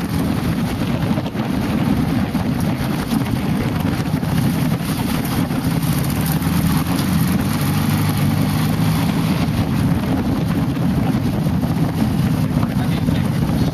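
Dune buggy engine running steadily under way, a loud low drone, with wind noise on the microphone.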